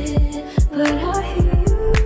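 Background R&B-style pop song with a steady drum beat and a held vocal line.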